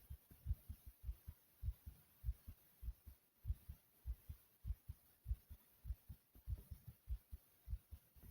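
A human heart beating fast and hard: paired low thumps (lub-dub) repeating evenly, a little under twice a second.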